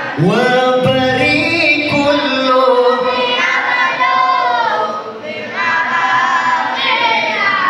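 A congregation of men and women singing together in unison: a devotional Islamic song for the Prophet's birthday (Maulid).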